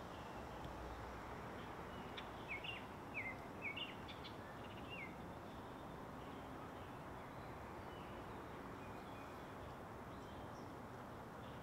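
A small songbird calling: a quick run of about six short, high, downward-slurred chirps a couple of seconds in, with a few fainter notes later, over a steady faint background hiss.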